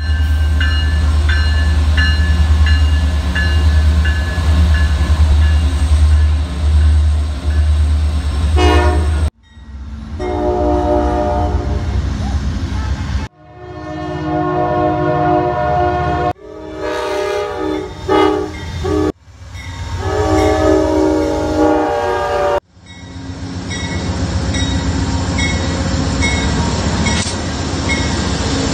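A run of short train clips cut together. First, a Norfolk Southern diesel locomotive rumbles past a level crossing while the crossing bell rings in a steady tick. Then come four brief clips of multi-chime train horns blowing held chords. Last, an Amtrak train passes a crossing with the bell ringing.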